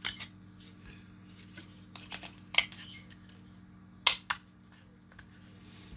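Small plastic clicks and taps as the clear cover of a three-AA battery box is handled and pressed back into place. The sharpest snaps come about two and a half and four seconds in.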